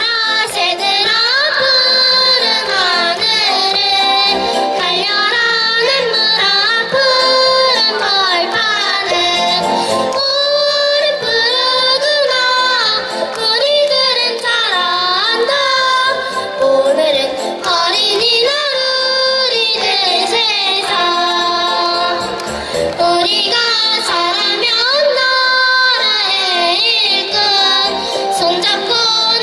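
Children's choir singing a Korean children's song together, the melody running on without a break.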